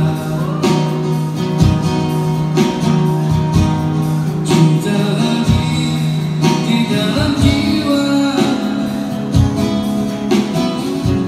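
Live acoustic guitar strummed as a man sings held notes, amplified through PA speakers.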